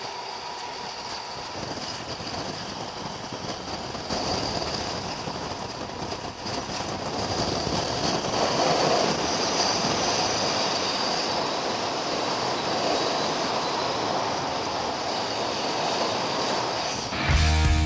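GAZ-63 truck driving, with a steady noise of engine and travel that grows louder a few seconds in. Music comes in at the very end.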